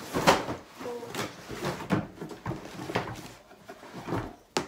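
Cardboard shoe boxes and shoes being handled and rummaged through: an uneven run of knocks, scrapes and rustles, with a sharp click near the end.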